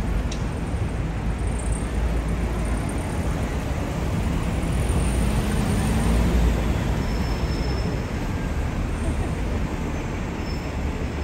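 Steady low rumble of road traffic, swelling about halfway through as a heavy vehicle passes, then easing off.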